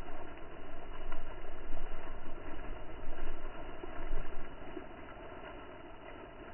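Wind blowing on the microphone in uneven gusts that swell and fade, over a steady rushing noise, settling lower after about four and a half seconds.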